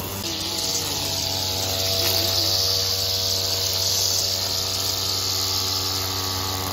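String trimmer running at a steady speed while cutting grass, a constant motor whine with a hiss from the spinning line.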